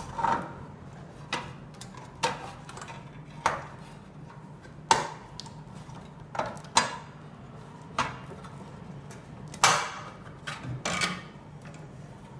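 Irregular clinks and knocks of machine parts and tools being handled as the string hopper machine's cover is taken off, about a dozen sharp strikes, some with a short ring.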